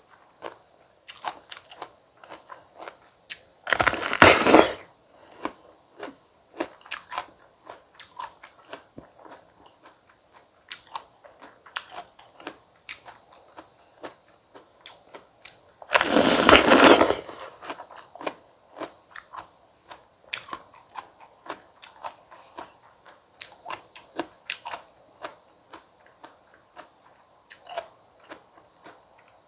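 Close-miked eating of crisp small stone fruit: two loud crunching bites, about 4 and 16 seconds in, each followed by a stretch of soft, wet chewing and small mouth clicks.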